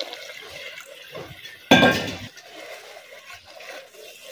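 Wooden spoon stirring and scraping wet fried masala in a clay cooking pot. About two seconds in comes one loud metallic clank of a steel vessel, ringing briefly.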